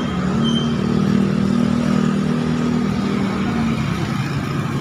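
A motor vehicle's engine running close by, a steady low hum that fades out about three and a half seconds in.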